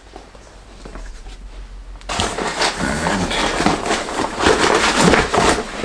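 Cardboard box and packaging being handled: a dense rustling and scraping with small clicks that starts abruptly about two seconds in, after a quiet stretch with only a low hum.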